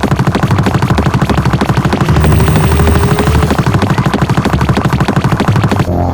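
Machine-gun fire sound effect: a long unbroken burst of rapid, evenly spaced shots over the song's bass line, cutting off just before the end.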